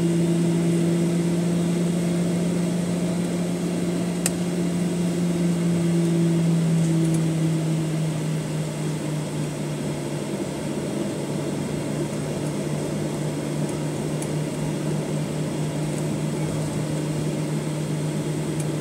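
Steady cabin drone of a Boeing 737-900ER taxiing, its CFM56-7B engines at idle, heard from a window seat. Its hum dips slightly in pitch about halfway through, and there is one faint click about 4 seconds in.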